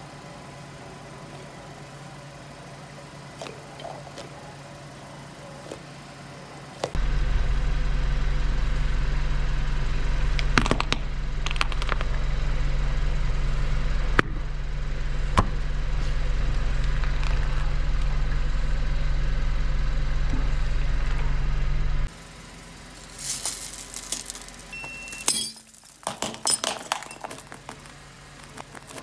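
A car engine idling close by as a steady low drone, with a few sharp clicks over it. In the last few seconds the drone drops away and there is crackling and crunching as a ceramic plate and candy-coated chocolates break under a car tyre.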